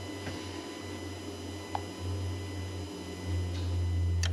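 A steady low hum that grows louder about three seconds in, with a faint click near the middle and a sharper click just before the end.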